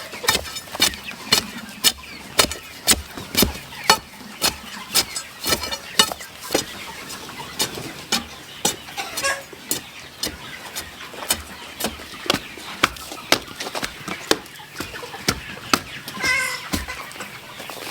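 Chickens, with a long string of sharp taps at roughly two a second and a brief cluck near the end.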